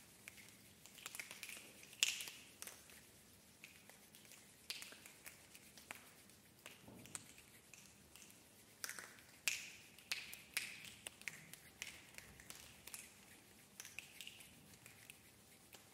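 Choir making sparse, irregular finger snaps and clicks scattered across the ensemble with no steady beat, as the texture of a choral text-score piece; a louder cluster comes about two seconds in and again around the middle.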